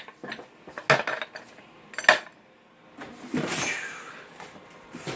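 Hard plastic shop-vac parts, the caster wheels among them, knocking and clacking together as they are handled out of the box, several sharp clacks in the first two seconds, the loudest about two seconds in. A rustle of packaging follows.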